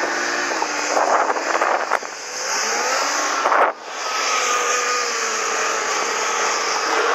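Snowmobile engine running under throttle, its pitch rising and falling. About halfway through the sound drops out sharply for a moment, then the engine runs on at a steady pitch.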